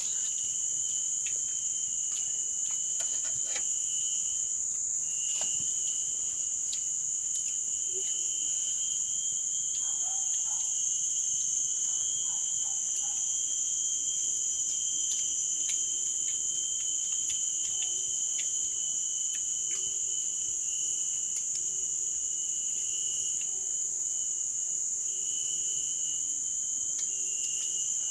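Steady chorus of forest insects, a continuous shrill drone at several pitches, with scattered small clicks and knocks over it.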